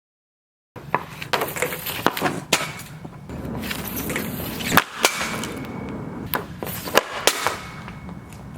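Hockey stick and puck clacking and knocking in a series of sharp hits, starting about a second in, with the loudest strikes near the middle and toward the end.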